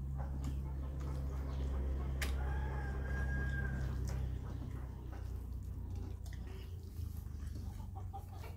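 Eating by hand from a steel bowl: fingers mixing rice and chicken against the metal, with scattered soft clicks, over a low steady hum that eases off about halfway through. A faint held call sounds in the background a little over two seconds in.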